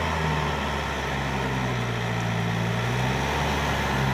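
Yanmar EF494T tractor's diesel engine running steadily under load while pulling a rotary tiller through wet paddy mud. Its note sags a little about halfway through and picks up again near the end.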